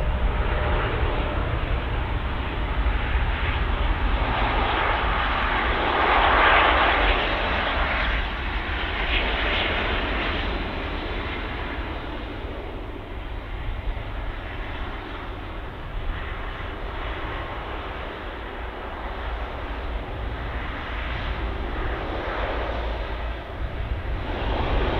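Airbus A330-300 airliner's Rolls-Royce Trent 700 engines rushing as the jet rolls out on the runway just after touchdown. The noise swells to its loudest about six seconds in, then eases off steadily.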